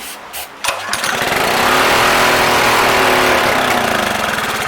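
Honda GX200 single-cylinder engine pull-started: a few clicks, then it catches about a second in and runs loudly, its speed rising and then sagging. The owners put the uneven running down to the engine not getting enough fuel.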